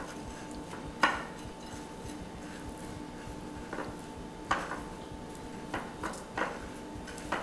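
Chicken tenderloins being pressed into breadcrumbs in a glass dish by hand: scattered light taps and knocks against the glass, the sharpest about a second in and a cluster near the end, over a faint steady hum.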